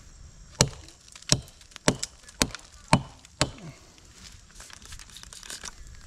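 Hatchet chopping into a tree trunk: six sharp strikes about half a second apart, cutting hack marks in the bark for herbicide.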